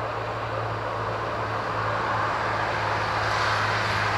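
Honey bees buzzing steadily around an open hive, a continuous hum that swells slightly about halfway through.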